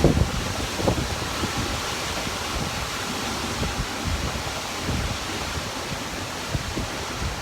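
Typhoon wind blowing hard and steadily, with gusts buffeting the microphone near the start, about a second in and again around five seconds.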